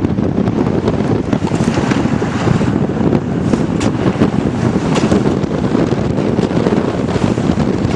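Strong wind buffeting the microphone, a loud, constant rumble that rises and falls, out sailing in a small dinghy on a very windy day.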